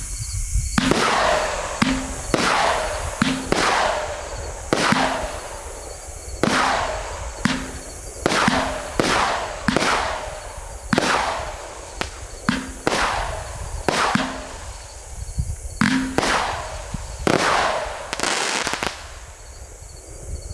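Cutting Edge 'Hardcore' 200-gram, 16-shot consumer firework cake firing shot after shot. Its shells burst in the air, each a sharp bang with a fading tail, about one a second, starting about a second in.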